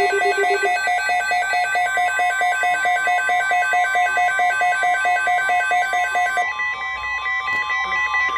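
Weather alert receivers sounding for a tornado watch: rapid electronic beeping in several pitches over a steady NOAA Weather Radio alert tone near 1 kHz. The beeping stops about six and a half seconds in, leaving the steady tone.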